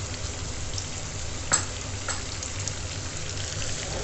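Chicken pieces sizzling steadily in hot oil in a kadai, a cup of yogurt freshly poured over them, with one sharp click about one and a half seconds in.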